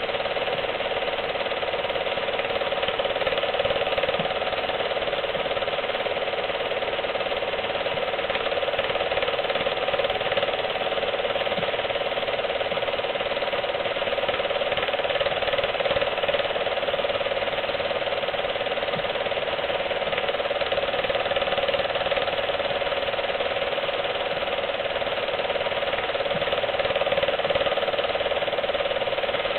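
Film projector running steadily, its mechanism clattering as it plays a silent home movie.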